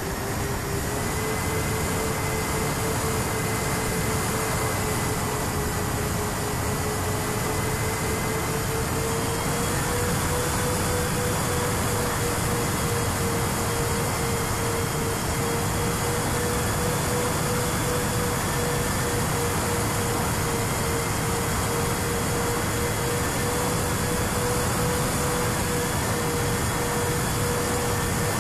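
The twin SunnySky 2212 brushless motors and propellers of a fixed-wing FPV plane are running at a steady cruise, giving a constant whine over a heavy rush of wind on the onboard camera. The whine's pitch rises slightly about ten seconds in.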